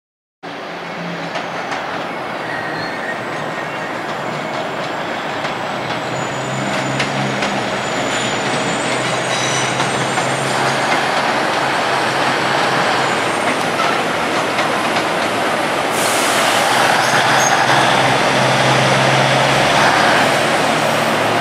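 Union Pearson Express diesel multiple-unit train pulling away: its diesel engines running with a low steady hum, with thin high squeals from the wheels on the track, the whole growing louder over the second half.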